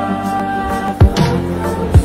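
Background music: held notes over a deep drum beat about once a second.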